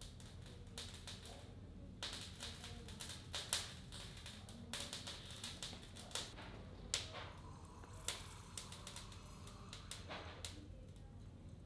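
Irregular light clicks and taps from hand tools being handled on a workbench, with a few short scraping strokes.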